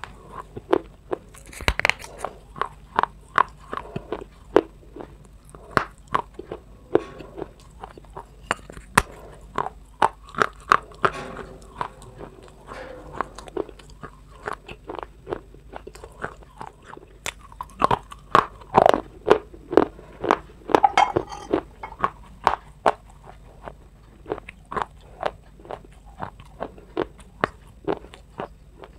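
Close-up crunching: a person biting and chewing something hard and dry, a rapid, irregular run of sharp crunches, with a louder burst of bites about two-thirds of the way in.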